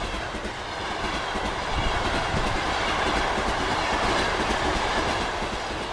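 A train running on rails: a steady rushing noise of wheels and carriages that swells a little in the middle.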